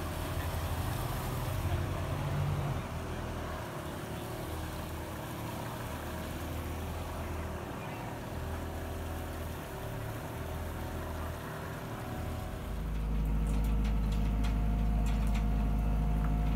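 An RNLI inshore lifeboat's outboard engine running steadily as the boat motors along the river. About three-quarters of the way through this gives way to the louder, steady low drone of the lifeboat launch tractor's engine moving the boat trolley, with a few sharp clicks.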